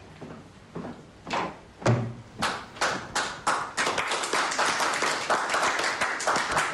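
Applause: a few scattered claps that quickly build into steady clapping from a group of people.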